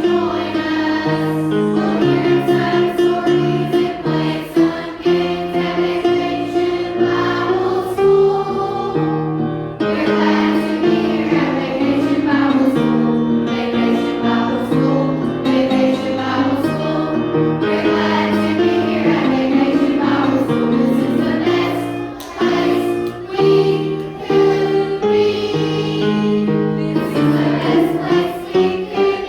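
Christian song sung by a group of voices over an instrumental backing with a steady beat.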